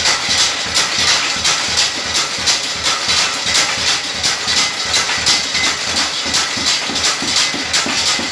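Belt-driven chilli grinding mill running, grinding dried red chillies into powder: a loud steady hiss with a fast, regular beat.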